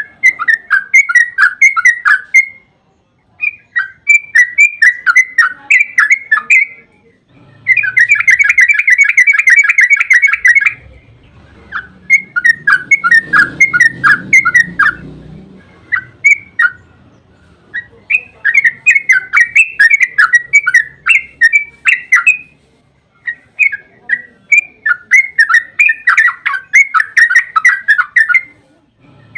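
Yellow-vented bulbul (trucukan) singing loud phrases of rapid chattering notes, a few seconds each with short pauses between. Some phrases run into long, fast rolling trills, about 8 to 10 seconds in and again near the end.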